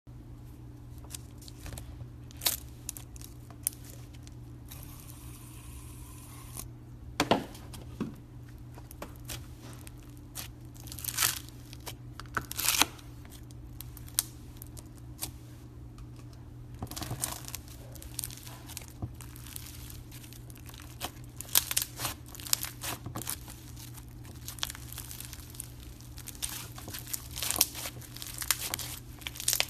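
Slime being squeezed, poked and stretched by hand, giving irregular crackles, pops and clicks over a steady low hum.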